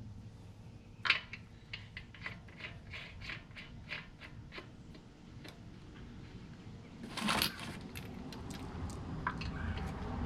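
Light metallic clicks and clinks of small metal parts and tools being handled, a quick run of them for a few seconds, then a louder rattling scrape about seven seconds in.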